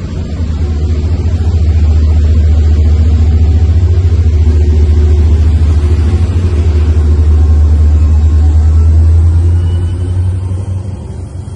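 Tri-Rail commuter train moving past at a platform: a loud, steady low diesel rumble from its locomotive builds as the locomotive draws level and passes, then fades about ten seconds in as it moves away.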